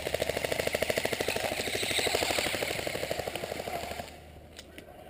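Airsoft gun firing on full auto, a rapid, even rattle of shots that stops about four seconds in.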